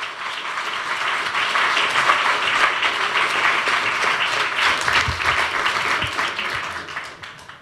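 Audience applauding, many hands clapping together; the clapping dies away in the last second or so.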